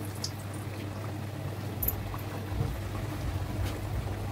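Stuffed kachoris deep-frying in a steel kadai of hot oil: a steady sizzling and bubbling over a low hum, with a low rumble coming in about two seconds in.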